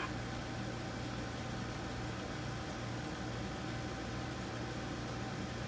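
Steady low hum with an even background hiss, like a running fan or appliance, unchanging throughout.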